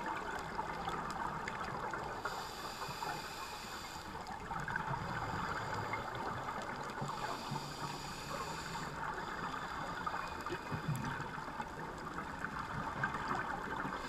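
Underwater reef ambience heard through a camera's waterproof housing: a steady crackling hiss. A scuba diver's regulator hisses twice, on breaths drawn about two and seven seconds in.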